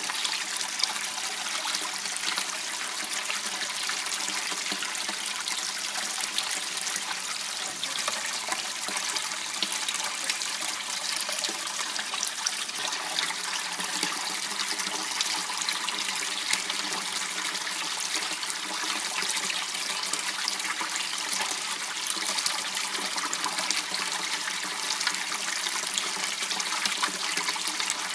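Water running and trickling steadily in a small channel, an even splashing hiss with no pauses.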